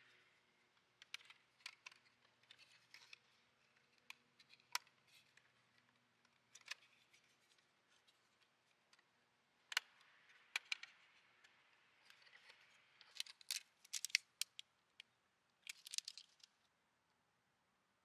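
Faint handling noise of a small plastic 1:24 scale RC truck turned over in the hand: scattered light clicks and brief rustles, coming in clusters, with near silence between.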